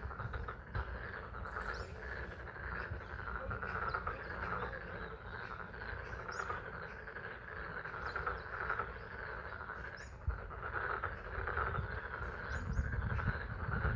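A dense chorus of frogs calling steadily together at a pond in spring rain, with a low steady rumble underneath and a few brief high chirps.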